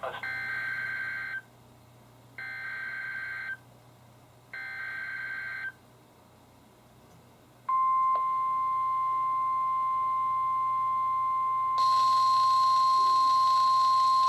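NOAA Weather Radio alert: three short bursts of the SAME data header, each about a second long, then the steady 1050 Hz warning alarm tone from about eight seconds in. This signals a warning broadcast, here a severe thunderstorm warning. About four seconds into the tone, a higher buzzy tone with hiss joins it and the sound gets louder.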